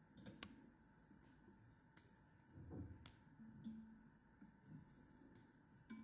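Near silence: a few faint clicks and a soft rustle about halfway through, from fingers wrapping a strip of virtual nymph skin around a fly's body at a fly-tying vise.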